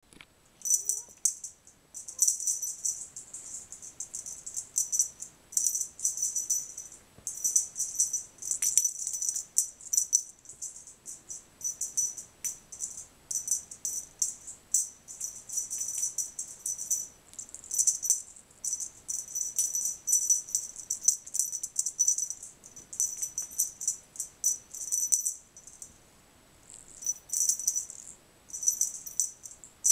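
Jingle bell cat toy being shaken, jingling in bursts of a second or more with short breaks between.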